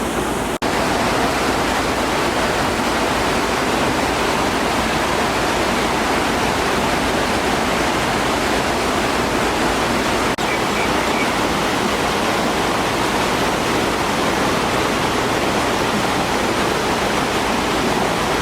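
Fast-flowing floodwater rushing steadily, with two very brief breaks.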